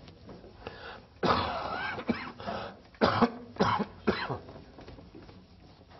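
A person clearing their throat and coughing: one longer rasp about a second in, then three short coughs in quick succession.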